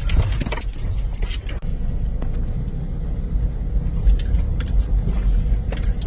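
Car driving slowly over a rough, patched road, heard from inside the cabin: a steady low rumble of engine and tyres, with a few knocks from the bumps.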